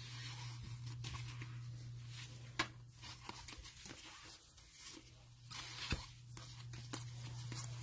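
Faint handling of trading cards and pack wrappers: soft rustling and sliding, with two sharper clicks about two and a half seconds and six seconds in, over a steady low hum.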